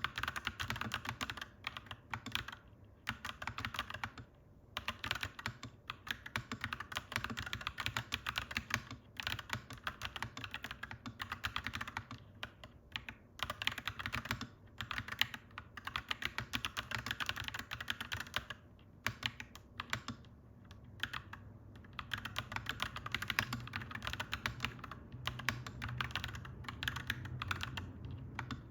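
Clacky mechanical keyboard being typed on in quick runs of keystrokes, broken by short pauses. A low steady rumble runs underneath and gets a little stronger toward the end.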